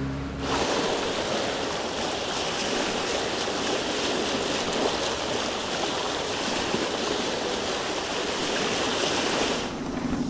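Steady rush of water and spray, like a hull running fast through the sea, starting abruptly just after a motor's drone stops. Near the end the rush cuts off and a pulsing engine hum comes back.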